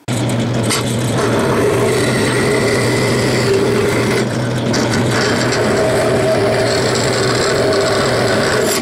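Vertical bandsaw running, its blade cutting through the rough metal of a freshly cast spanner wrench to trim off the excess. A steady motor hum sits under the hiss and rasp of the blade in the metal.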